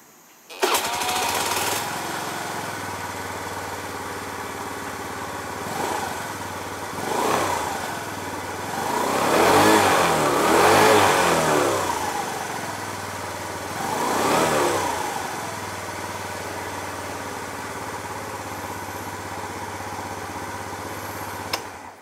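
Suzuki Let's 4 scooter's 49cc four-stroke single-cylinder engine starting up and idling, revved four times with the throttle, the longest rev in the middle, then switched off near the end.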